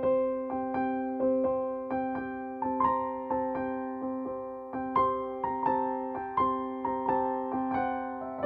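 Background piano music: soft single notes struck at an even gentle pace over a held low tone, each note ringing and fading.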